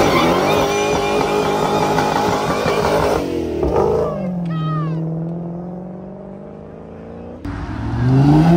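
Dodge Challenger's engine revved hard through a burnout, held high for about three seconds, then falling away in pitch as the car drives off. Near the end a second sports car's engine comes in suddenly, rising in pitch as it accelerates.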